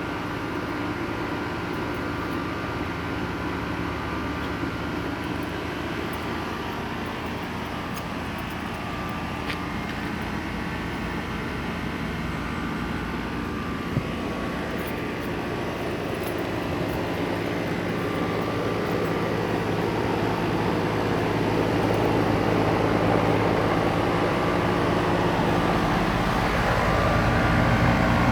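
A 3-ton R410a air-conditioning condensing unit running with a steady drone, growing louder over the second half. There is a single sharp click about halfway through.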